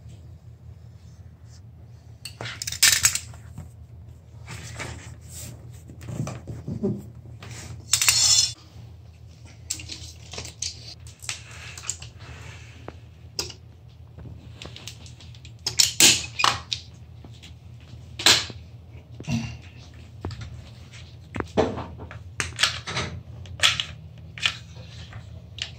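Irregular clicks, knocks and short clattering noises from hand work on vinyl cove base: a knife cutting the strip, pieces shifted on the floor, and a caulk gun laying beads of adhesive. A steady low hum runs underneath.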